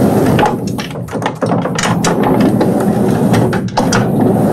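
Proof press clattering, a steady mechanical rumble with many quick clicks and knocks from its rollers and gears as the linocut block is re-inked.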